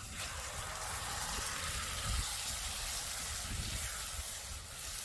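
Tomato sauce sizzling in a hot pan over a campfire, a steady hiss that starts abruptly.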